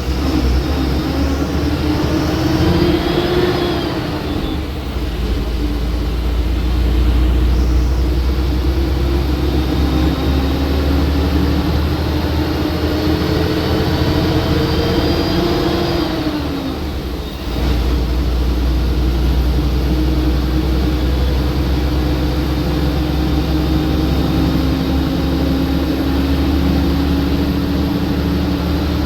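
Ashok Leyland BS6 diesel engine of a 12 m bus pulling under way. Its note climbs steadily, then drops and eases off briefly about two-thirds of the way through before pulling again.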